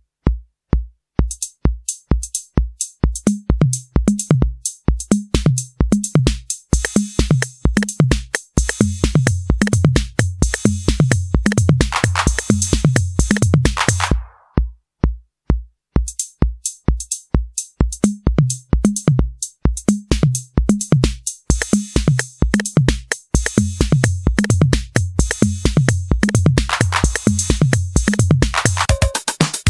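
Roland TR-8S drum machine playing a factory preset pattern: a kick on every beat, about two a second, under a pitched low bass-drum line and busy hi-hats and cymbals. About 14 seconds in, a noisy swell fades out and the beat drops to silence for a moment, then starts again about 16 seconds in. Near the end it switches to a different pattern.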